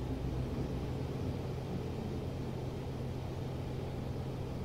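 Steady low hum with a faint hiss: the background noise of an old lecture recording, heard in a pause between spoken phrases.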